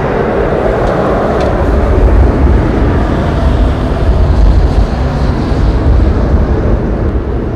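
Twin GE Honda HF120 turbofans of a HondaJet HA-420 climbing away after take-off, a broad jet engine noise slowly fading as the aircraft recedes. Gusty wind rumbles unevenly on the microphone underneath.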